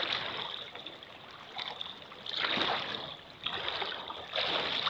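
Shallow river water splashing and rushing as someone wades barefoot across it, the splashes coming in irregular surges a second or so apart over the steady flow.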